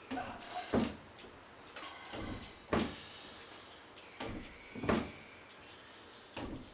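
Knocks and thuds in pairs, the two about half a second apart and the second the louder, a pair every two seconds or so.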